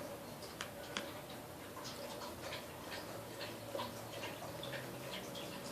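Small, irregular clicks and taps, several a second, of a spoon against a yogurt cup as a toddler feeds herself, over a faint steady hum.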